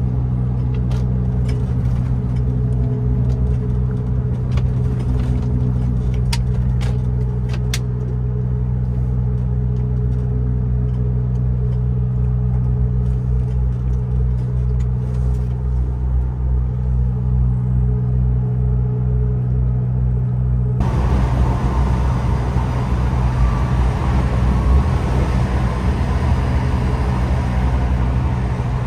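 Diesel engine of a MAN TGX 18.510 truck (12.4-litre straight-six) running with a steady low hum, heard from the cab, with a few light clicks in the first several seconds. About two-thirds of the way in, the sound changes abruptly to a rougher, hissier noise.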